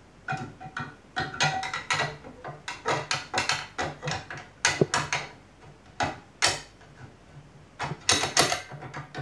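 Irregular clicks and knocks as a print plate is fitted by hand onto a small desktop 3D printer, plastic and metal parts tapping and snapping into place. There are several louder knocks around five and six and a half seconds in, and a cluster near the end.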